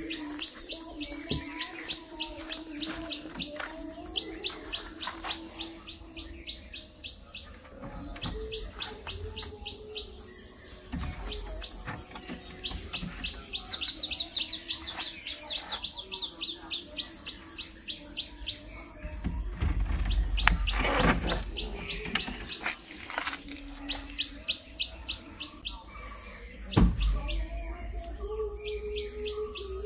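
A small bird chirping over and over, short high chirps about three a second, with a brief trill about halfway. A couple of low thumps, the loudest sounds, come about two-thirds of the way in and again near the end.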